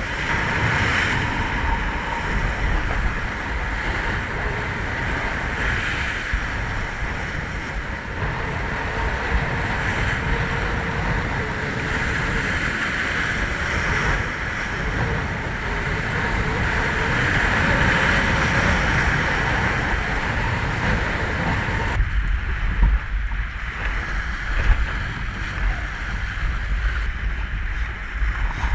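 Rough sea surf breaking and washing over a rocky shoreline, a continuous hiss and rush, with wind buffeting the microphone. About 22 seconds in the surf hiss drops back and the low wind rumble grows heavier, with a couple of sharp knocks.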